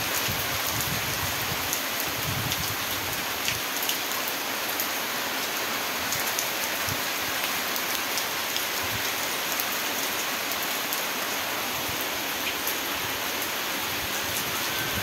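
Steady rain falling: an even hiss with scattered sharp drop ticks close by.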